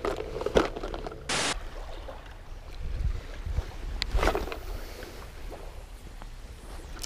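A spinning rod being cast: a swish about four seconds in, with jacket-sleeve rustle against the microphone and a low wind rumble.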